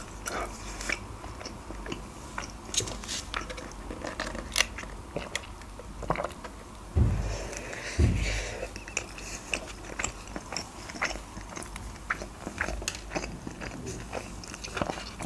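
Close-miked eating of a KFC Boxmaster grilled tortilla wrap: many small wet clicks and crunches of biting and chewing, with two heavier low thumps about halfway through.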